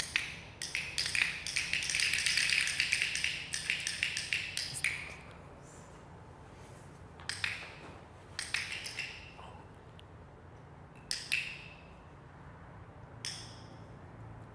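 Handheld dog-training clickers clicked by several children: a dense flurry of clicks over the first five seconds, then single clicks a few seconds apart. Each click marks the learner doing the right thing in a clicker-training game.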